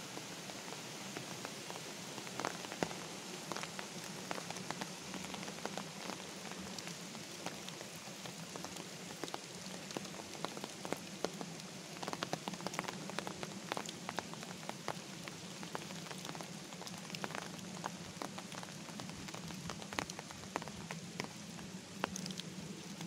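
Light rain falling steadily on a wet paved path and surrounding leaves, an even patter dotted with many sharp little ticks.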